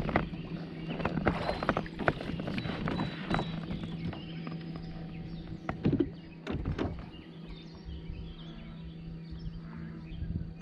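Hollow knocks and clunks of gear and paddle against a plastic kayak hull, thick in the first few seconds and with two more about six and seven seconds in, then quieter, over a steady low hum.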